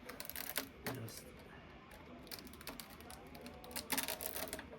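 Rustling and quick clicking of packaging being handled, in two spells: just after the start and again near the end.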